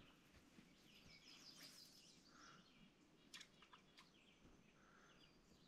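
Faint songbird chirps and trills, with a brief rapid trill about a second and a half in and a few soft clicks a little after three seconds.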